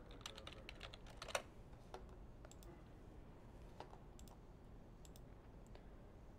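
Faint typing on a computer keyboard: a quick run of keystrokes in the first second and a half, then scattered single clicks.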